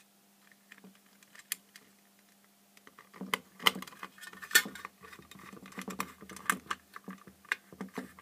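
Light clicks, taps and rattles of hands fitting a metal reflector into an LED floodlight's metal housing and pushing the wires into place. A few separate clicks come first, then a busy run of handling noise from about three seconds in, over a faint steady hum.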